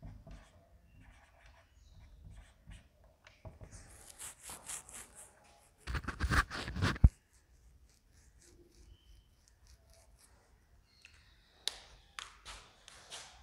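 Felt-tip marker scratching and squeaking in short strokes on a whiteboard. About six seconds in comes a louder rustle and knocking close to the microphone, with a few sharp clicks near the end.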